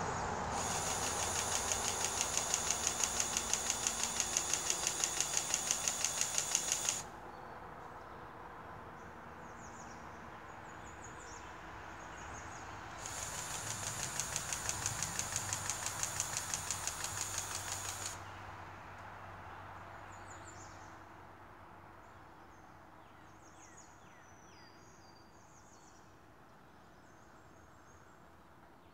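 Battery-powered grease gun running in two bursts of about six and five seconds, a high motor whir with a rapid pulsing of its pump, forcing grease into the fittings of a John Deere 700J dozer.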